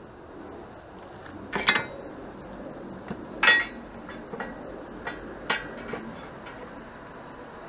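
Metal parts being handled on a welded steel go-kart frame and cluttered workbench: three sharp metallic clinks with a brief ring, at about one and a half, three and a half and five and a half seconds in, with lighter taps between them.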